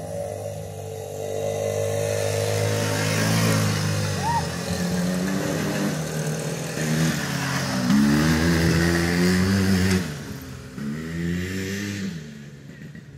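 Small engines of two youth ATVs, a Yamaha Raptor 50 and a Polaris Scrambler 90, revving and accelerating as the quads ride across the yard. The engine pitch rises and falls again and again, loudest past the middle, then drops off suddenly and runs on more quietly.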